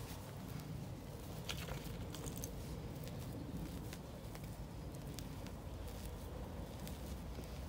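Faint rustling and light crackles of soil and roots as a potted willow's root ball is handled and loosened, over a low steady rumble.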